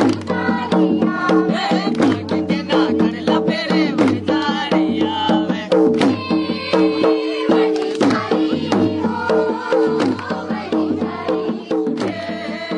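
Folk dance music with a dhol drum beating a fast, steady rhythm under held melodic tones.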